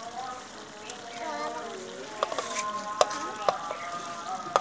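Chicken sizzling in a large steel pot while a steel spoon scrapes ginger and green chilli paste off a plate into it. From about two seconds in, several sharp clinks of the spoon on the metal each leave a ringing tone.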